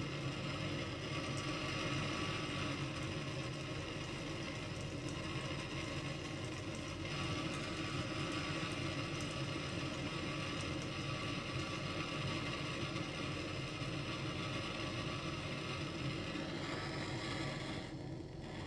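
Gas hand torch burning steadily as its flame heats the copper fittings of a shower valve for soldering. The hiss thins out briefly near the end.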